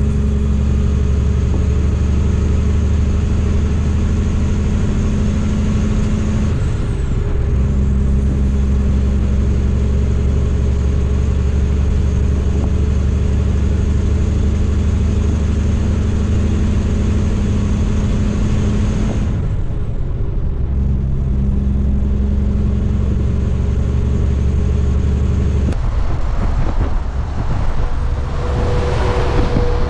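Heavy truck's diesel engine running steadily under way, its drone breaking off briefly about six seconds in and again around twenty seconds. In the last few seconds the engine drone stops and a noisier, more even sound takes over.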